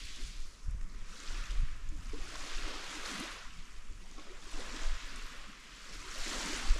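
Small waves washing onto a sandy beach, the hiss of the water swelling and fading every second or two, with wind rumbling on the microphone.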